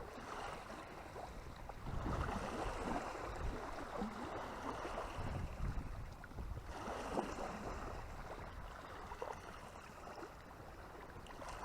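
Moving water rushing steadily, swelling louder about two seconds in and again around seven seconds.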